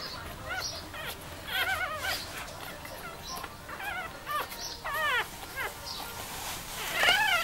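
Newborn French bulldog puppies crying, a string of short, high-pitched squeals and whines with a wavering pitch, one after another. The loudest cry comes near the end.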